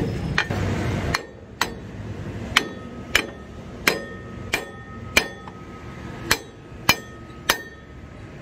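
A hammer striking the steel spring shackle and bracket of a truck's leaf-spring axle: about ten sharp, ringing metal-on-metal blows at a steady pace of roughly one or two a second, starting about a second in.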